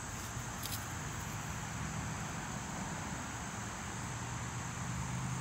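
Steady high-pitched chorus of insects, such as crickets, trilling continuously, with a faint low drone underneath.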